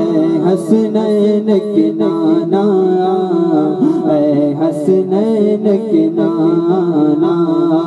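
A man singing an Urdu naat into a microphone over the venue's sound system: a drawn-out, ornamented melodic passage held between lines of verse, with no clear words.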